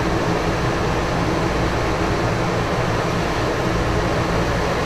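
A steady mechanical hum with an even rushing noise, as from a running fan or motor.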